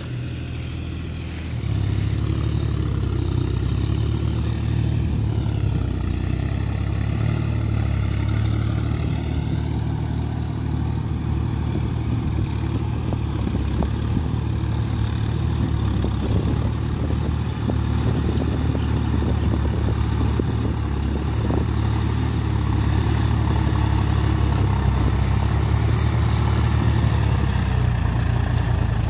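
John Deere tractor engine running steadily under load while pulling a cage-wheeled tillage implement, a continuous low engine note that gets louder about a second and a half in.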